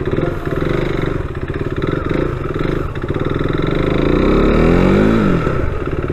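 KTM RC single-cylinder motorcycle engine pulling away at low speed. The revs rise about four seconds in and drop back near five seconds as the next gear goes in. Its drive chain is freshly cleaned and lubed and runs without the ticking it had before.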